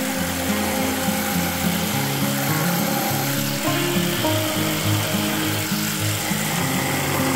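Background music, a run of low notes changing every fraction of a second over a steady high hiss.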